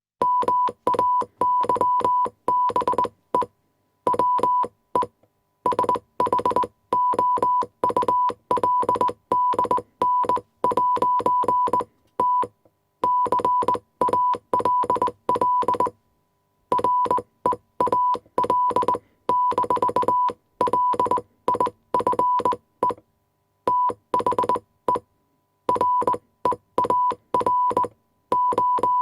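Morse code sent as a steady beep of about 1 kHz, keyed rapidly on and off in short and long tones. The tones come in groups with short gaps between them, like a radio telegraph transmission.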